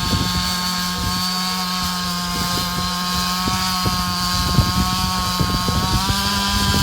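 Chainsaw held at full throttle, its engine note steady and high while cutting into the fallen tree, dropping off at the very end.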